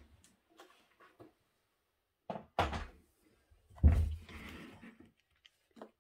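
Two clusters of hard knocks and clatter, about two and a half and four seconds in, as die-cutting plates and a metal die are handled on a work table. The second is followed by a short rustle and a few small clicks.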